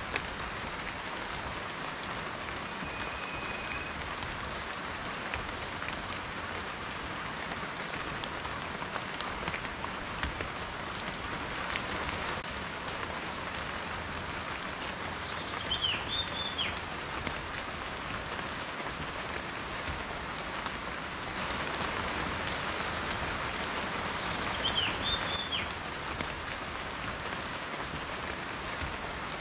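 Steady rain falling, with many individual raindrops ticking and pattering on a surface. Two short high chirps come through the rain, one about halfway and one later.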